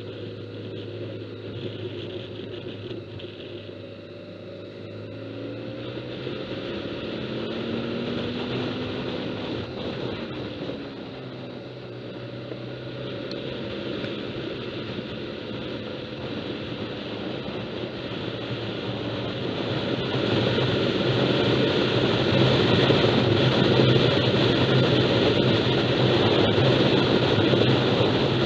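Motorcycle engine running at road speed with wind rushing over the microphone; the engine's pitch rises and falls through the bends in the first half. About twenty seconds in, the wind and engine get louder and stay so.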